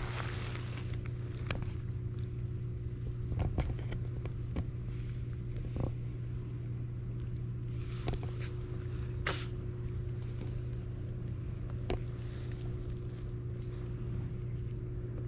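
A steady low mechanical hum, like an engine or motor running, with a few short soft clicks over it.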